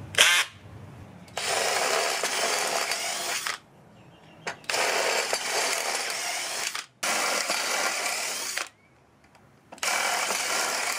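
18-volt Tool Pro cordless drill boring pilot holes through stacked aluminium strips. After a brief spin of the drill right at the start come four runs of drilling, each about two seconds long, with short pauses between them.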